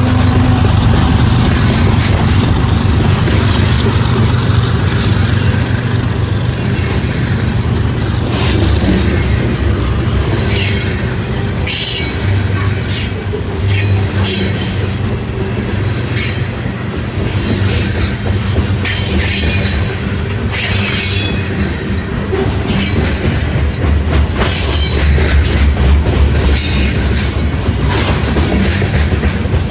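Loaded grain freight train rolling past: a steady rumble of the cars, with wheels squealing and clicking on the rails, short squeals coming again and again from about eight seconds in.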